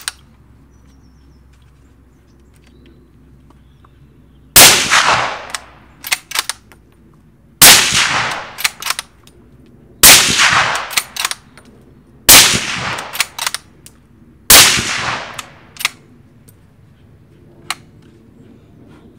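Five suppressed rifle shots from a Sauer 505 bolt-action in .308 Win, fired about two and a half seconds apart, each with a short ringing tail. Quieter clicks follow each shot as the bolt is cycled for the next round.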